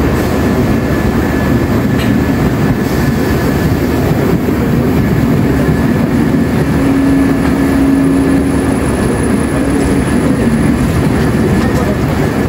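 Coaches of an Indian Railways express train rolling slowly past, a loud steady low rumble of wheels on rails. A steady hum joins in for about three seconds in the middle.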